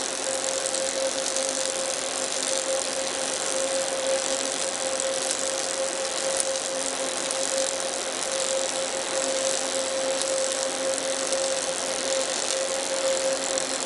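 Robotic CO2 arc welding with Panasonic Active TAWERS active wire feed control, at around 180 amps: a steady, even hiss with a constant mid-pitched hum running under it.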